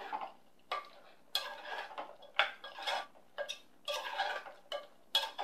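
Metal spoon stirring a thick buttermilk curry with pineapple pieces in a metal pressure cooker, scraping and clinking against the pot in short irregular strokes, about two or three a second.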